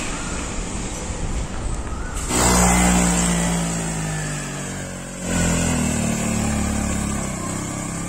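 Motorbike engine pulling a loaded sidecar cart up a steep road, running loudly from about two seconds in, with a sudden change in its note about five seconds in.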